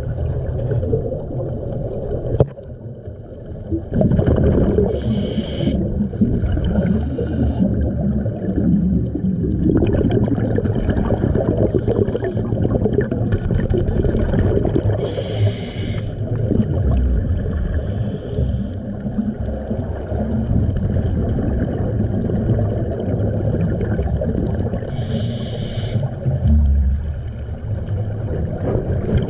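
Scuba breathing heard underwater: a steady low rumble of exhaled bubbles, broken by a short hiss from the regulator every few seconds as a diver inhales.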